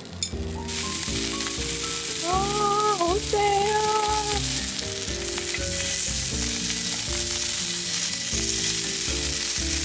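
Slices of hanwoo beef sizzling steadily on a hot griddle pan with butter, the sizzle growing louder just after the start. Soft background music plays underneath.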